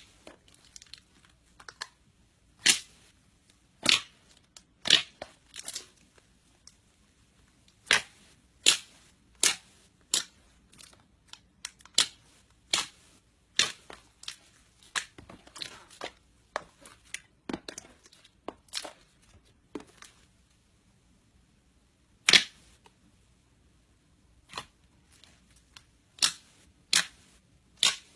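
Thick white slime being pressed, poked and stretched by hand, giving off irregular sharp pops and crackles, with a brief lull partway through.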